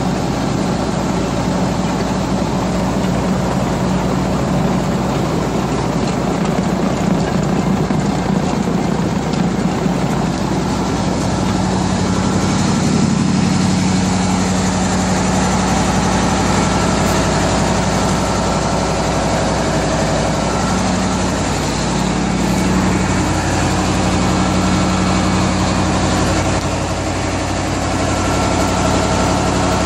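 A 1995 Wirtgen 2000DC cold milling machine running steadily, its diesel engine giving a low drone. The milling drum with its cutting picks is turning. The pitch of the drone shifts slightly a little over twenty seconds in.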